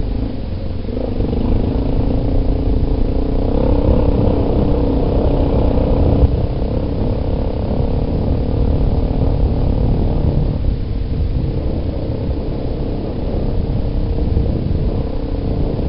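Yamaha Big Bear ATV's single-cylinder four-stroke engine running on the move, its note climbing over the first few seconds and easing off about six seconds in. Wind rumbles low and heavy on the helmet-mounted microphone.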